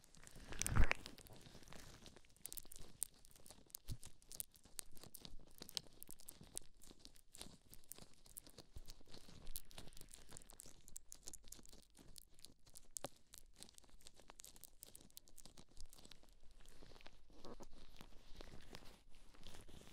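Rubber-gloved hands rubbing and squeezing the silicone ears of a binaural microphone, heard up close as a dense, continuous run of small scratches and clicks, with one loud bump about a second in.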